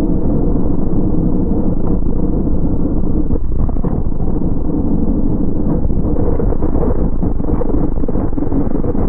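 Racesaver 305 V8 sprint car engine running hard at racing speed, a loud, steady engine note with wind noise over it.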